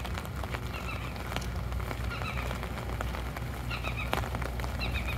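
Rain falling on an umbrella overhead: many small scattered drop ticks over a steady low hum, with a few short high chirps about two seconds in, near four seconds and at the end.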